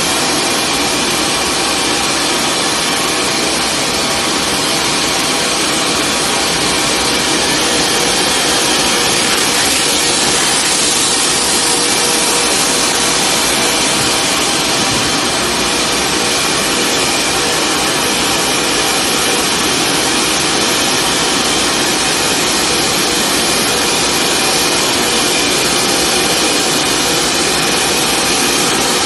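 Boeing 747's hydraulic system running during a landing gear retraction test on jacks: a constant loud rushing whine with several steady tones and no distinct clunks.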